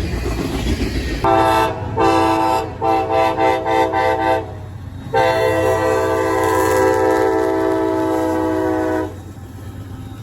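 Locomotive multi-chime air horn over the rumble of a passing train: two short blasts, five quick toots, then one long blast of about four seconds that cuts off near the end, the playful pattern of a horn salute.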